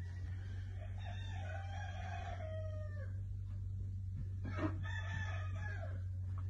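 A farm animal calling twice: one long call of about two seconds that drops in pitch at the end, then a shorter call, with a low hum underneath.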